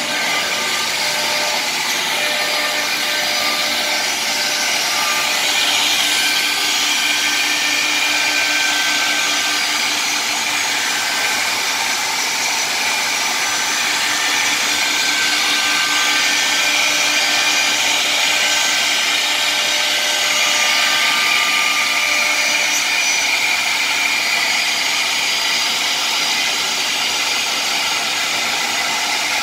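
M1325K3 CNC router's spindle routing mortise slots into a wood-grain panel, with its dust extraction running: a steady, even whir with a few faint steady tones.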